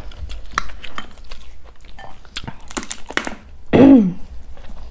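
Sounds of a family noodle meal: chopsticks and utensils clicking against bowls, and a couple of short hissing slurps. About four seconds in comes a brief sound falling in pitch, the loudest moment.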